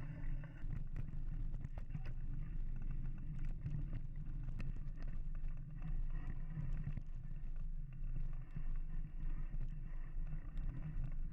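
Mountain bike riding along a dirt trail: a steady rumble of tyres and wind buffeting the microphone, with frequent small clicks and rattles from the bike.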